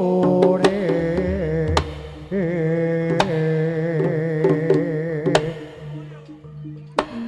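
Live Jaranan gamelan music: a wavering, reedy melody over sustained low gong tones and sharp drum strokes. The music thins out about six seconds in, and a sharp drum stroke sounds near the end.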